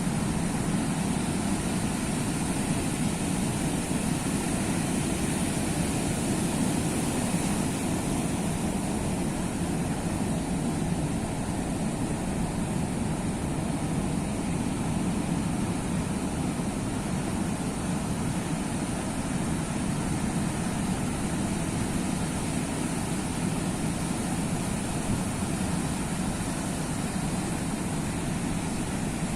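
Steady roar of sea surf, an even wash of noise with no distinct breaks between waves.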